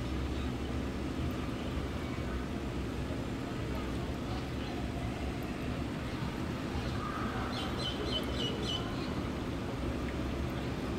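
Steady low hum and hiss of background noise, with a short run of about six quick high chirps near eight seconds in.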